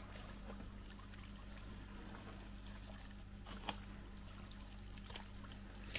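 Faint wet sloshing and squelching of a hand kneading powdered desert terrarium clay into water in a plastic tub, with a few small wet clicks midway.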